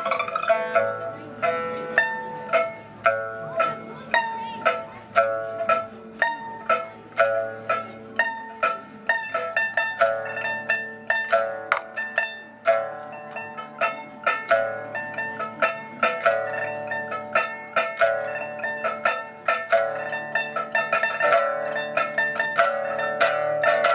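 Solo pipa, the Chinese pear-shaped lute, playing a lively Chinese folk tune: a steady run of sharply plucked notes, many of them repeated in quick succession, each ringing briefly.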